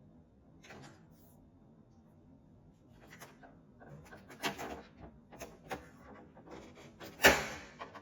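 Hard plastic parts of a Roomba cleaning head and its latch being handled: a string of small clicks, knocks and rubs, with one sharp click about seven seconds in.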